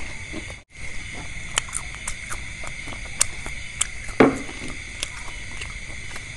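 Scattered small clicks and taps over a steady high-pitched hum, with one louder, duller knock about four seconds in.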